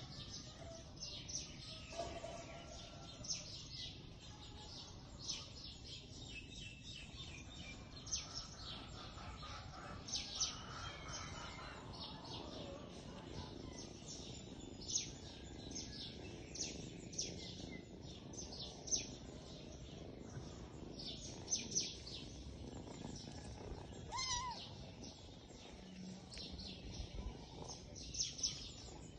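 Small birds chirping in the background: many short, high chirps coming irregularly, over a steady low background hum.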